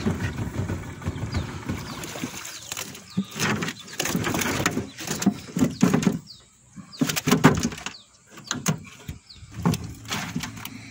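Irregular knocks, thumps and splashing as a large tapah catfish (wallago) is hauled from the water into a small boat and lands on its floor and against the hull.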